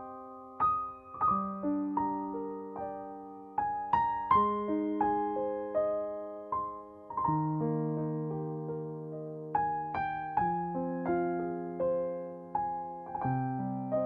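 Background music: a slow, gentle piano piece, its notes struck one after another and left to ring and fade.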